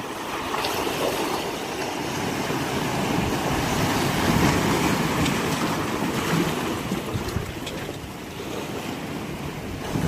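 Ocean surf at high tide surging in and breaking among large shoreline rocks, a continuous hiss and wash of churning foam. One surge swells to its loudest about halfway through, then eases off.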